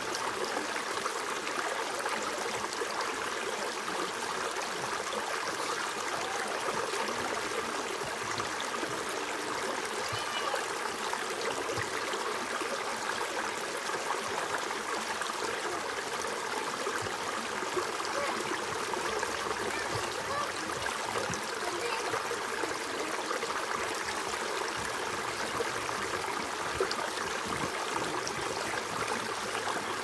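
Shallow rocky stream running steadily over stones and spilling down a small cascade, an even rush of water with no breaks.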